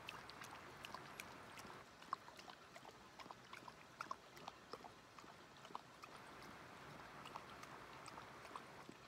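Dog lapping a drink from a small cup held out to it: a quick, uneven run of faint wet laps and clicks.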